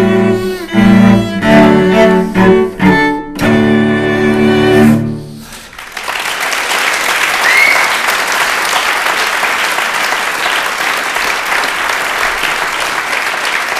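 A cello duo plays a few loud bowed notes that end the piece about five seconds in. An audience then breaks into steady applause.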